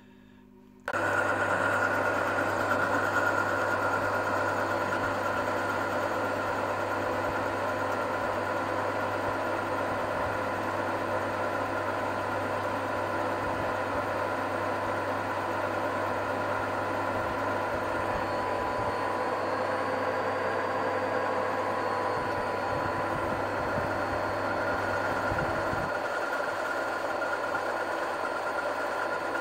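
Metal-turning lathe running under power, its tool taking a cut to true up a tractor clutch-pedal boss held in the chuck: a steady hum with a steady whine over it. It starts suddenly about a second in.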